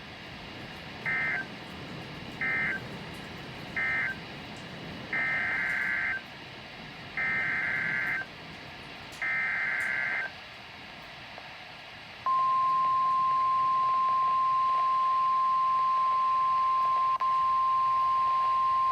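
Emergency Alert System data bursts on NOAA Weather Radio: three short end-of-message bursts, then three longer bursts of about a second each (the SAME header of the next alert), all buzzy two-tone data. About twelve seconds in, the loud steady 1050 Hz warning alarm tone starts and holds, announcing a new warning.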